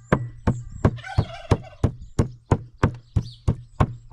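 Cleaver chopping raw meat on a wooden chopping board: sharp, even chops about three a second.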